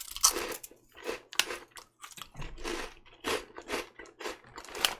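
Shrimp-flavoured crackers being crunched and chewed, a run of irregular crunches about two or three a second.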